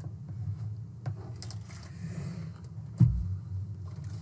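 Small clicks and scrapes of a computer case and motherboard being handled, with one sharp knock about three seconds in, over a steady low hum.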